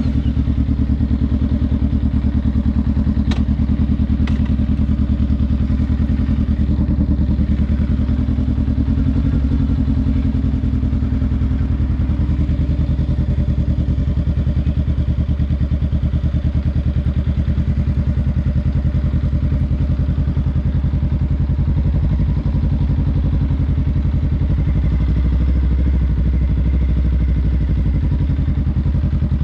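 Honda Rebel 500's parallel-twin engine idling steadily through a Vance & Hines aftermarket exhaust, an even low pulsing with no revs.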